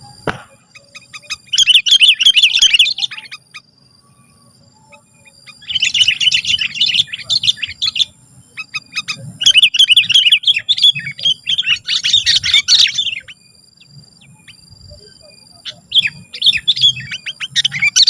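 Sooty-headed bulbul singing vigorously in bursts of rapid, chattering notes, five bursts separated by short pauses: the aggressive, challenging song used to provoke rival bulbuls.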